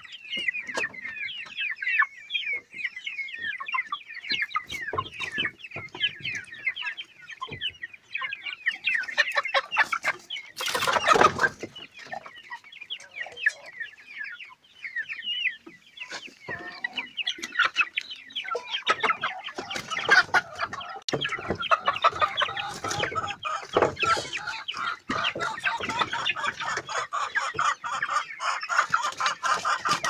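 A flock of young hens clucking and chattering. About eleven seconds in there is one brief loud outburst, and the clucking grows busier and louder in the second half.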